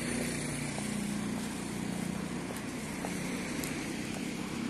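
An engine running with a steady low hum, along with a few faint clicks.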